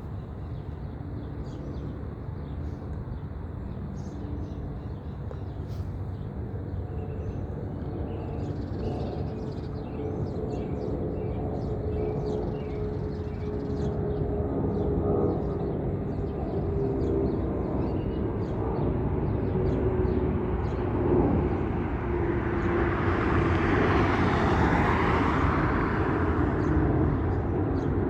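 Boeing 767-300ER freighter's twin GE CF6 turbofans at climb power: a steady jet rumble that grows louder as the aircraft approaches, with a whining tone that slowly drops in pitch. It is loudest and fullest near the end as the aircraft passes closest.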